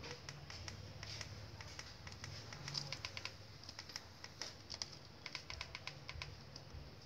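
Remote-control buttons clicking under a thumb in quick runs of several presses, as a key code is entered one digit at a time.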